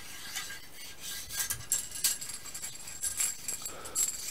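A cleaning rod with a wet bore brush being pulled through an AR-15 barrel, its handle letting the brush spin with the rifling: light, irregular metallic scraping and jingling.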